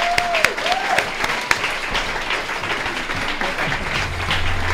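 Audience applauding, a dense clatter of many hands clapping, with music and a steady low bass note coming in under it near the end.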